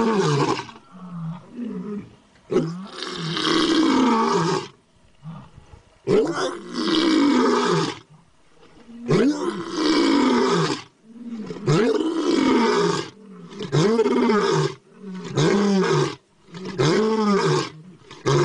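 Tiger roaring over and over: about eight long, rough roars, each a second or two, separated by short pauses and coming shorter and closer together toward the end.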